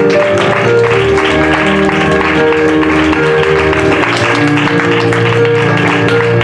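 Live piano music with sustained notes, over scattered audience clapping.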